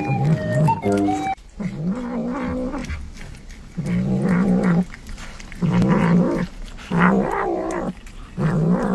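A cat growling and yowling in long, wavering calls, about five of them a second or so apart, each lasting about a second.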